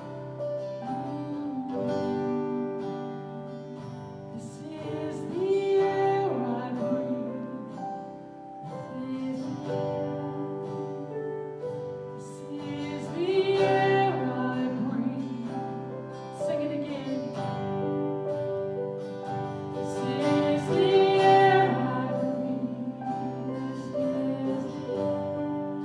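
Worship song: a woman singing over acoustic guitar and sustained accompaniment, with long held vocal phrases.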